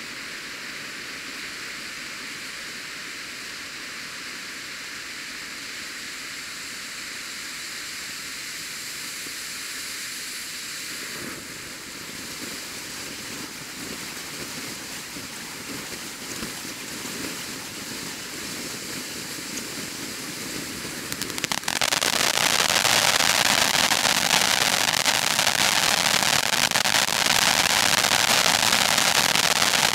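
World Class Fireworks 'Taco Tuesday' 500 g fountain firework burning with a steady hissing spray of sparks, growing rougher and more uneven after about ten seconds. About two-thirds of the way through it suddenly breaks into loud, dense crackling: the crackle finale.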